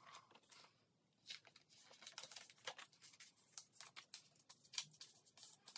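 Faint rustling and crinkling of plastic binder pocket sleeves as photocards are slid into them, a run of soft crackles and ticks starting about a second in.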